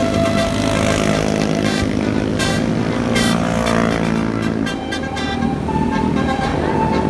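Indonesian bus 'telolet' multi-tone air horn playing a stepped melody over a running bus engine, the tones sliding in pitch around the middle.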